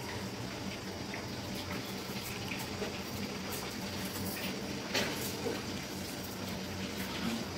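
Fish frying in oil in a pan on an induction cooktop: a steady sizzle, with one sharp click about five seconds in.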